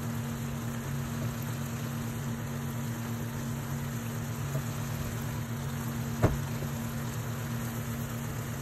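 Squid simmering in adobo sauce in a pan: a steady bubbling hiss over a low steady hum, with one sharp click about six seconds in.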